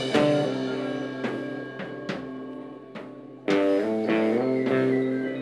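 Live rock band playing an instrumental passage between vocal lines: a guitar chord rings out and slowly fades under sharp drum hits, then a second loud chord comes in about three and a half seconds in.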